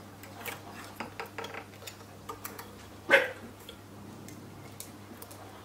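Light clicks and taps of hands working threads through an overlocker's guides, and about three seconds in a single short, loud dog bark.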